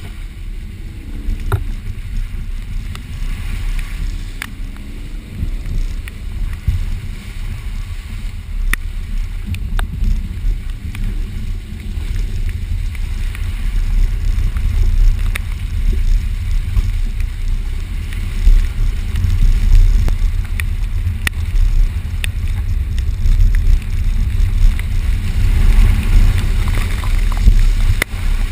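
A vehicle driving over rough off-road ground: a heavy, uneven low rumble with scattered knocks and rattles, growing louder through the second half.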